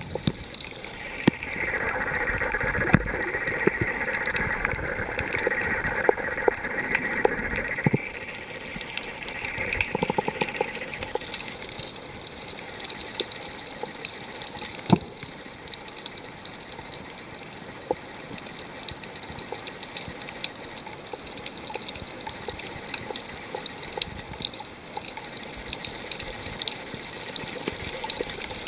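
Underwater ambience picked up by a camera on a coral reef: a steady watery hiss with sharp clicks and crackles scattered throughout. For about the first eight seconds a louder rushing sound lies over it, then drops away.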